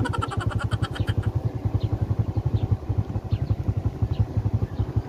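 A small engine running steadily with a rapid low chug. A fast clicking rattle sounds over it for about the first second.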